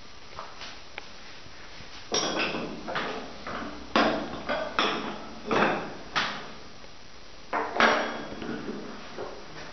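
Irregular knocks and clatters of hard objects, each with a short ring, in a burst of several about two seconds in and another cluster near the end.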